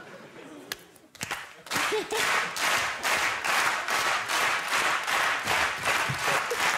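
Studio audience clapping along in a steady rhythm, about three claps a second, starting about two seconds in after a brief lull.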